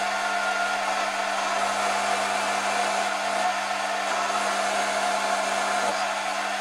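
Foreman TB1835 mini lathe running at a steady speed while turning a 304 stainless steel rod: an even motor whir with a steady hum under it.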